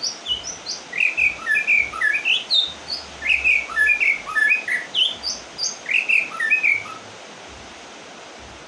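White-rumped shama singing a fast, varied run of short whistled notes and slurs that stops about seven seconds in, over a steady background hiss. The bird has just finished its molt.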